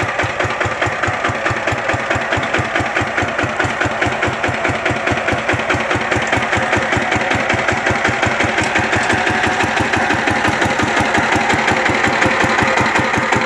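Engine of a farm ploughing machine running with a steady, fast knocking beat, getting slightly louder near the end.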